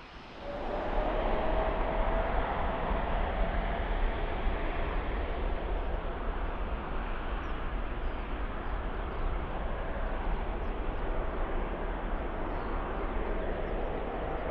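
Jet airliner engines running loud, a steady noise with a steady whining tone, starting abruptly about half a second in.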